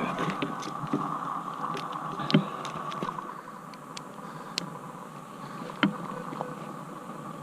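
Scattered sharp metallic clicks and clinks of a bicycle chain and a chain tool being handled. The loudest click comes about two and a half seconds in and another near six seconds, over a faint steady hum.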